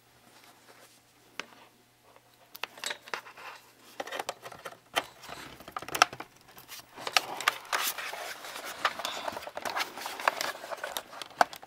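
A grey DB-9 connector on a mouse adapter cable being handled and pushed into a laptop's serial port: scattered plastic clicks, scrapes and rattles. The sounds begin about two and a half seconds in and grow busier in the second half.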